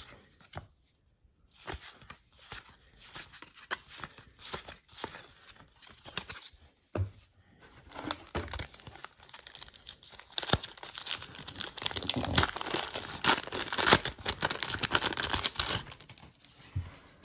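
Trading cards handled with scattered light clicks, then a pack of 1991-92 Score hockey cards pulled from its box and its wrapper torn open, crinkling and tearing for several seconds, loudest a little past the middle.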